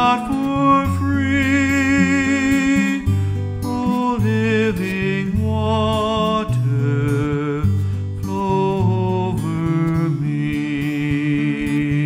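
A man singing a slow hymn melody to his own acoustic guitar accompaniment, the sung phrases held with a light vibrato over low guitar notes.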